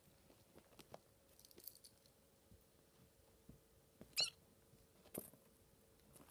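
A Maine Coon kitten gives one short, high, wavering squeaky mew about four seconds in. Otherwise near quiet, with faint small clicks from the kittens scuffling.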